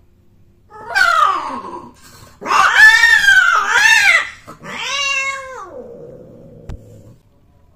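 Female cat's loud post-mating cry: three yowls, the middle one the longest and loudest, the last sliding down into a low held note. It is the scream a queen gives as mating ends and she turns on the tom.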